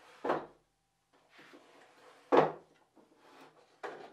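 Three-tier wooden folding toolbox being opened by hand: its trays swing out on pivoting wooden arms with a light scraping of wood on wood, and knock to a stop three times, loudest about two seconds in.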